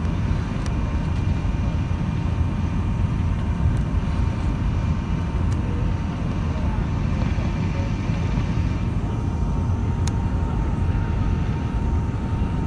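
The Li-2's two Shvetsov ASh-62IR nine-cylinder radial engines running steadily at low taxiing power, a deep, even drone heard from inside the aircraft, with a faint steady whine above it.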